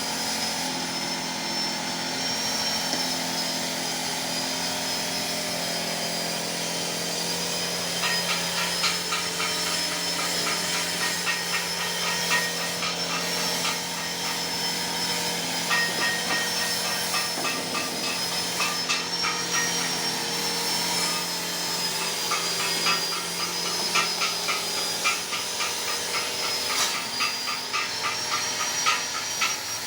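Motor-driven two-blade areca nut splitting machine running with a steady high whine and hum. From about eight seconds in, a fast, irregular clatter joins it.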